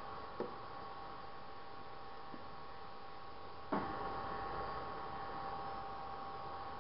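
Induction cooktop humming steadily with a thin high whine as it heats a pan of ghee and oil. A single sharp knock sounds a little under four seconds in.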